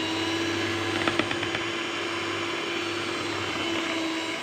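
Electric hand mixer running at a steady pitch, its twin beaters whipping a cream mixture as liquid gelatin is beaten in, with a few light clicks about a second in.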